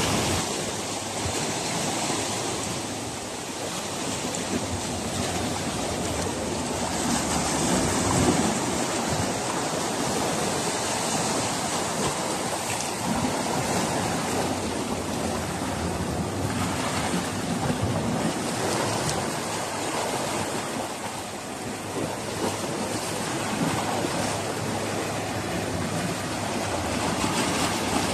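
Sea waves washing against a rocky shore: a steady surf noise that swells and eases every few seconds.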